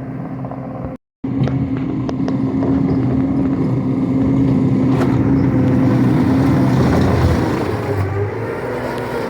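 Wacker Neuson SM100 mini skid steer's engine running steadily under work, with a few sharp clicks and knocks just after a brief cut in the sound about a second in; the engine note shifts near the end.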